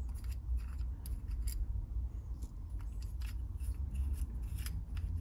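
Small screws being turned out by hand from the metal restrictor plate of a scooter variator: scattered light metallic clicks and scrapes.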